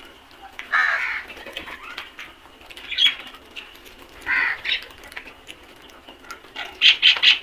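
Crows cawing harshly: one long caw about a second in, further caws around three and four and a half seconds, and a quick run of about five short caws near the end.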